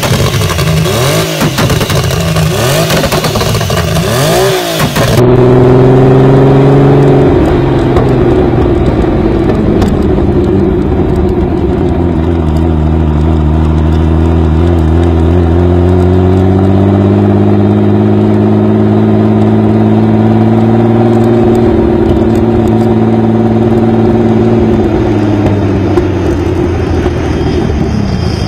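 Turbocharged engine of a heavily modified BMW E30, built to about 1,000 hp, revving in blips for the first few seconds. After a sudden cut it runs steadily at low revs, its pitch slowly dipping and rising again.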